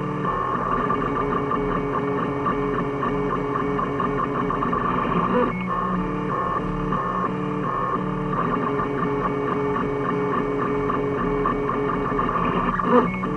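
3D printer stepper motors whining in steady tones that jump between a few fixed pitches as the print head changes speed and direction, with a brief sharper jolt about five seconds in and a louder one near the end.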